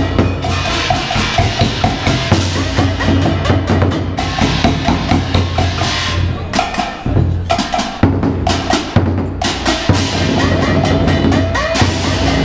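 Chinese drum ensemble playing: large red barrel drums beaten with sticks together with hand-held percussion, in a dense, fast rhythm of strikes.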